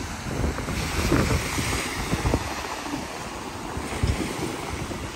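Small waves breaking and washing up onto the sand, with wind buffeting the microphone.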